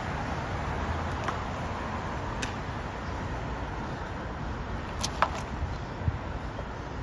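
Street traffic with cars driving past and a steady road noise. A few sharp clicks stand out about a second in, at two and a half seconds, and in a small cluster around five seconds in, the loudest of them.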